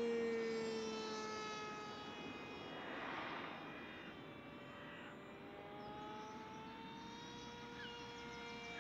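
Radio-controlled twin-jet model airplane flying overhead: a steady whine from its jet units, loudest at the start and sliding down in pitch as it passes, then rising again in pitch later as it comes back around.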